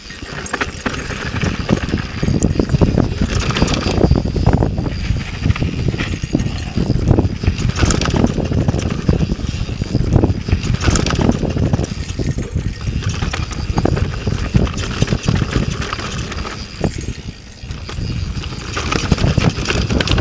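Yeti SB4.5 mountain bike bombing down rough dirt singletrack: a constant uneven clatter of chain, frame and tyres over bumps and rocks, under a heavy low rumble of wind on the microphone.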